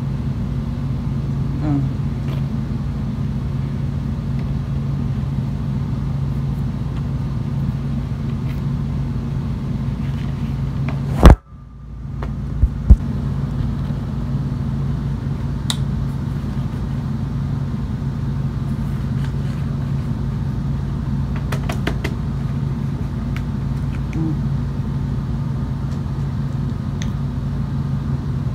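Steady low background hum, as of a fan or appliance. About eleven seconds in there is a single loud knock, with a brief drop in sound after it, then two smaller knocks, and a few faint clicks later on.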